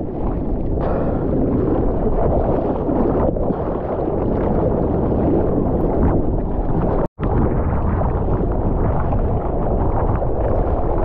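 Water rushing and sloshing around a surfer's GoPro, with wind buffeting the microphone. The sound drops out completely for a split second about seven seconds in.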